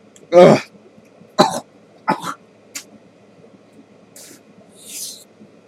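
A man coughing and gagging after a swig of apple cider vinegar: one loud throaty cough, several shorter coughs, then two breathy exhales near the end. The sour vinegar is burning his throat.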